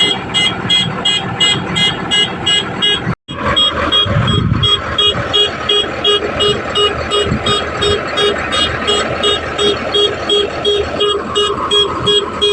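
Vehicle engine running with a rapid, evenly repeating electronic beep, about three to four beeps a second, like a machine warning alarm. The sound cuts out for an instant about three seconds in, then carries on unchanged.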